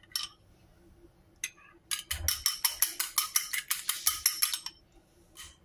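Chopsticks beating two raw eggs in a ceramic bowl, clicking against the sides. A few clicks, a pause of about a second and a half, then a quick run of about six or seven clicks a second for nearly three seconds, and one last tap near the end.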